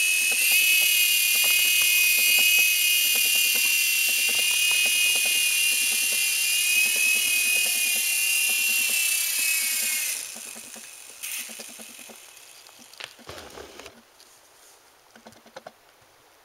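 Phoenix 3-channel mini RC helicopter's small electric motors and rotors whining at a high, slightly wavering pitch, then winding down and falling away about ten seconds in. Afterwards there are only a few faint ticks and a soft knock.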